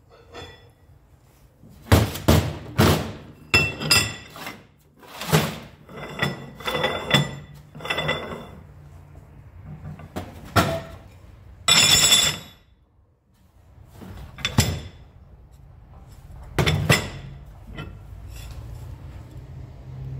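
Heavy machined steel parts, a chain sprocket, carrier plates and a drive spool, being moved around and set down on a workbench: a series of clanks and thunks, several ringing briefly like struck metal, with a short harsh scrape about twelve seconds in.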